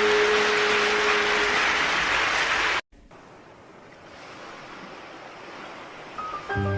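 Steady rushing sound of sea waves with the last held note of a song fading in it; both cut off abruptly about three seconds in. A fainter hiss follows, and the first mallet notes of the next song come in near the end.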